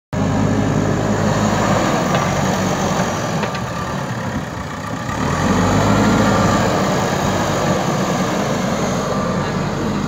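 JCB 3DX Super backhoe loader's four-cylinder diesel engine running steadily as the machine pushes and levels soil with its front bucket. The engine note sags slightly about four seconds in, then revs up and grows louder a little after five seconds.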